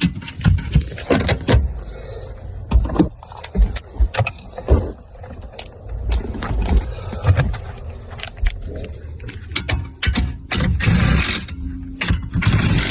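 Scattered clicks and knocks of plastic trim pieces and parts being handled around a pickup's steering column, over a low rumble.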